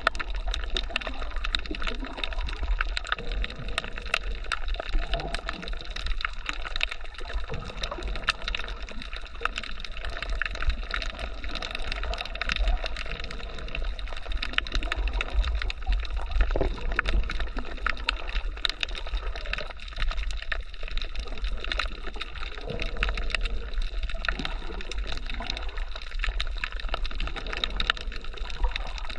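Steady underwater water noise picked up by a camera submerged over a coral reef, with dense crackling clicks and a low rumble throughout.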